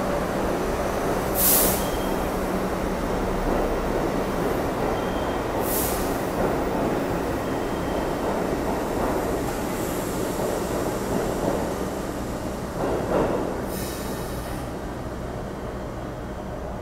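New York City subway train running past along the station platform, a steady rumble with three brief high-pitched wheel squeals. The rumble fades toward the end as the last car goes by.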